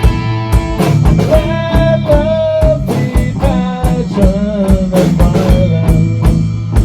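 Rock band playing an instrumental passage: drum kit keeping a steady beat under bass, with a lead electric guitar line of bent, wavering notes entering about a second in.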